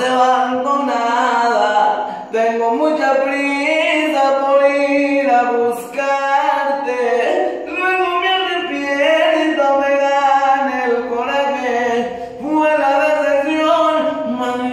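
A young man singing a Spanish-language love song a cappella, in long held notes with no instrumental backing.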